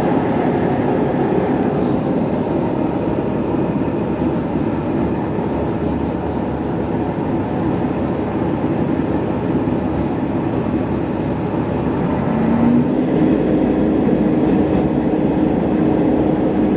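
Sanriku Railway diesel railcar running along the line, heard from inside the car: a steady rumble of wheels and engine. About twelve seconds in, a short rising tone leads into a steady hum and the running noise gets a little louder.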